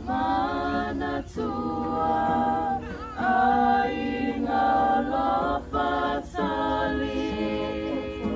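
A group of adults and children singing together without accompaniment, holding long notes in phrases with short breaths between them.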